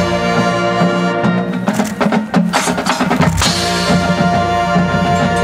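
High school marching band playing its field show: brass holding sustained chords over the percussion section, with a run of sharp drum hits in the middle.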